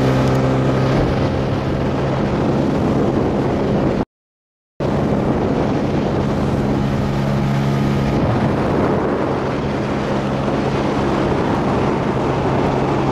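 Outboard motor of a small inflatable boat running steadily at moderate speed, the boat under way but not planing, with wind and water rushing past. The sound cuts out completely for a moment about four seconds in.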